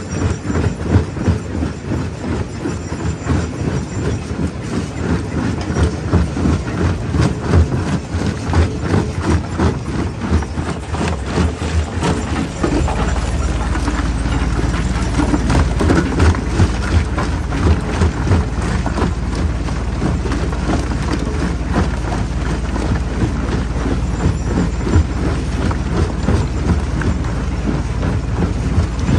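Jaw crusher breaking rock: a dense run of cracking and knocking impacts over the heavy running of the machine. A deep steady hum sets in about halfway through.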